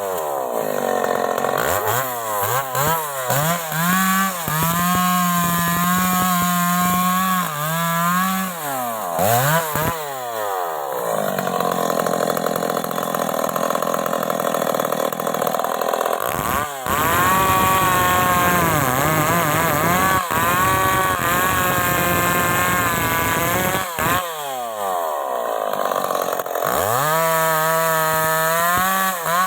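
Stihl MS 381 two-stroke chainsaw. For the first ten seconds or so the throttle is opened and released several times, so the engine swings between high revs and idle. It then runs at high revs for long stretches as it saws through wood, its pitch sagging now and then under load.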